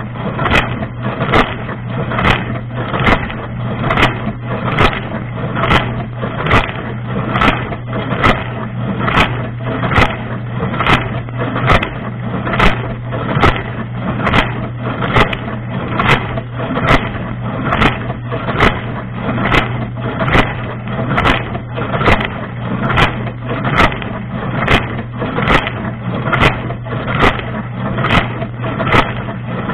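Dishwasher wash cycle heard from inside the tub: the circulation pump hums steadily under a dense hiss of spraying water, with a sharp splash striking in an even beat about once a second.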